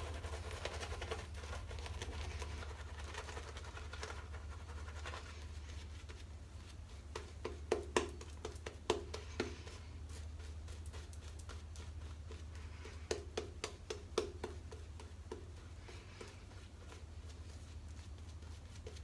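Two-band badger shaving brush swirling lather over stubble, a soft wet scratching, with a few sharp clicks and taps about seven and thirteen seconds in, over a steady low hum.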